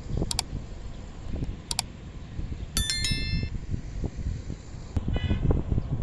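Wind buffeting the microphone, with two sharp mouse clicks in the first two seconds and then a bright notification-bell ding about three seconds in, the click-and-ding sound effect of a like-and-subscribe button animation.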